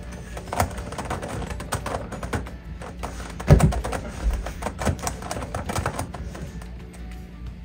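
Plastic megaminx puzzle being twisted by hand: a run of quick, irregular clicks and clacks as its faces are turned, with one louder knock about three and a half seconds in.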